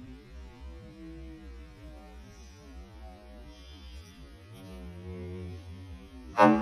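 A low steady hum with faint wavering tones, and near the end a single sharp knock as the glass soy sauce bottle and its plastic lid are handled.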